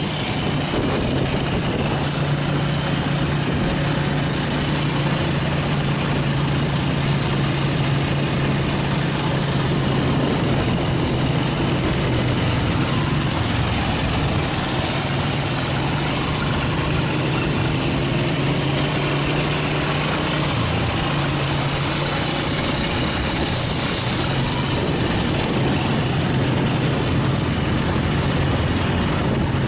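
Motorcycle engine running at a steady pitch while riding, under a steady rushing noise. The engine note dips briefly about two-thirds of the way through.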